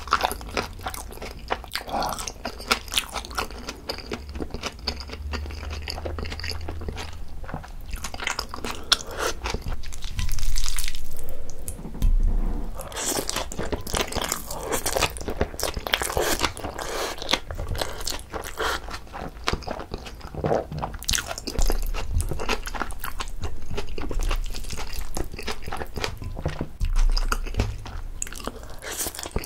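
Close-miked chewing of Chapagetti black-bean instant noodles: a continuous run of wet, clicky mouth sounds, with a louder, longer slurp of noodles about ten seconds in.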